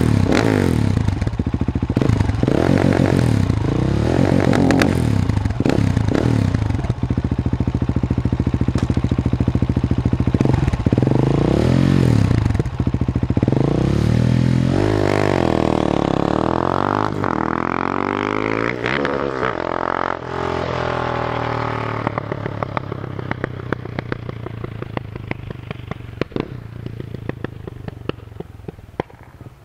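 Husqvarna 701 supermoto's single-cylinder engine revved in short blips against the launch-control rev limiter while the bike stands, then launching away about halfway in, the pitch rising through several gear changes before fading into the distance. Sharp exhaust pops crackle as it fades.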